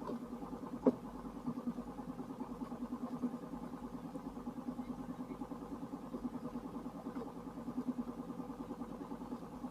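A small engine running steadily at an even idle-like pulse of about six beats a second, sounding muffled. A single sharp click about a second in.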